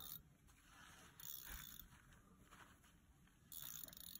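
Faint whirring of a spinning reel being wound in three short spells while the rod is bent under a hooked catfish.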